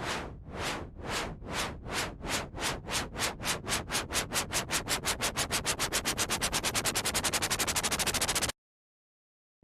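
Synthesized white-noise bursts pulsing in a steady rhythm that speeds up from about two or three a second to a fast flutter, like a train chugging as it picks up speed. The pulses cut off suddenly near the end, leaving silence.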